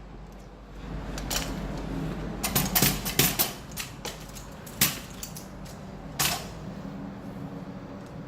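Hudora Big Wheel kick scooter being handled: its folding joint and handlebar clamp give a string of metallic clicks and clanks, a quick cluster near the middle and two sharper single knocks later on.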